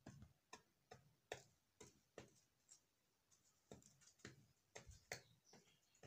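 Faint, sharp clicks at an irregular pace, roughly two a second: a dove pecking seed off a wooden floor.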